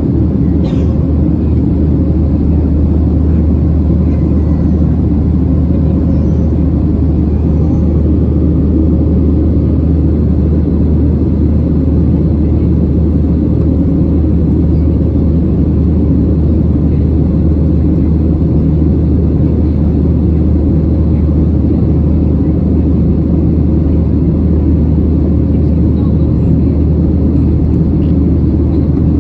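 Steady cabin noise of a Boeing 737-700 climbing after takeoff: a low, even rumble of its CFM56-7B turbofan engines and rushing air, with a steady low hum underneath.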